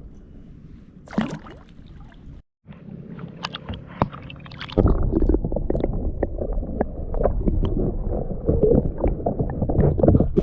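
Water splashing and gurgling around a kayak, with knocks against the hull. There is one sharp knock about a second in. From about five seconds in the splashing and knocking get louder and busier.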